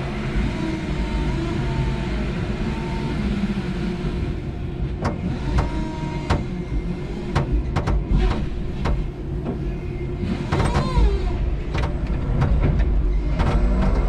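5-ton electric forklift truck working: a steady low rumble with an electric motor whine that shifts in pitch, and a run of sharp clicks and knocks in the middle, followed by a brief rising-and-falling whine.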